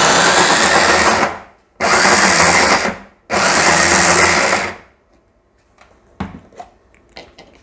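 Electric mini food chopper with a motor base, run in three pulses of a second or so each while it chops apple pieces. A few light clicks follow near the end as the chopper is handled.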